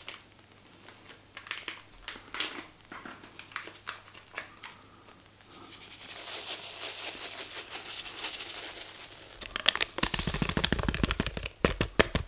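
Dry yeast sachet crinkling as it is handled and tipped out over the fermenter. A softer rustle comes first, then loud crackling of the packet in the last couple of seconds.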